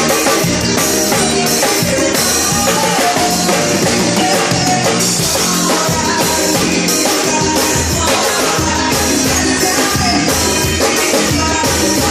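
Forró band music with a drum kit keeping a steady beat and a voice singing.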